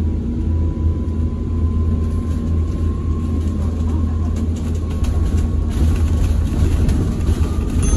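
Inside a moving ADL Enviro200 BYD electric bus: a steady low rumble of the bus on the road, with a thin electric-motor whine slowly rising in pitch as it gathers speed, and some light rattling.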